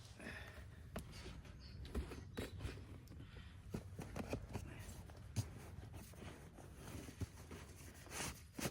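Scattered light knocks and clicks of things being handled, over a low steady rumble.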